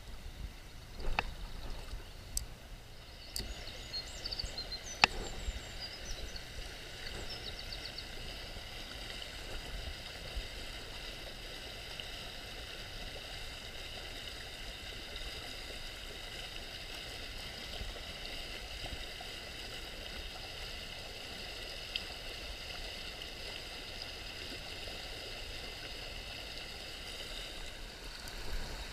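Steady rushing of a shallow river running over gravel riffles. A few sharp clicks come in the first five seconds.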